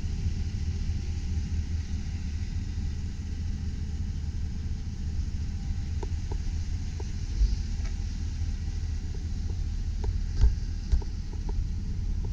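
2001 Chevrolet Silverado 2500 pickup's engine idling with a steady low rumble, with a few faint clicks in the second half.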